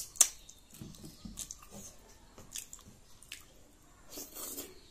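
Close-up eating sounds: two sharp clicks at the start, then fingers squishing and mixing wet food in a ceramic bowl, and, about four seconds in, chewing and lip smacking as a handful goes into the mouth.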